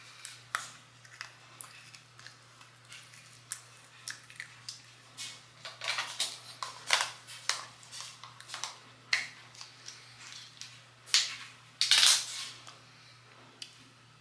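Chewing and crunching a toothpaste tablet in the mouth: irregular small crunches, with a couple of louder ones near the end.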